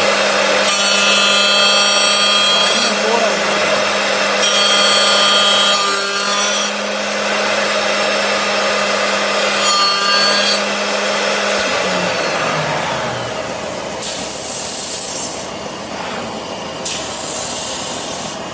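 CNC wood lathe turning a wooden sofa leg: a steady spindle hum under the rough, scraping sound of the cutter shaving the wood. About twelve seconds in, the spindle winds down with a falling tone, and near the end there are two short bursts of hissing.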